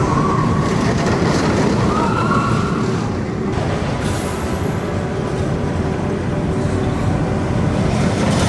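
A MACK Rides launch coaster's train running along its steel track, a continuous loud rumble of wheels on rail, with a few short whining tones in the first couple of seconds.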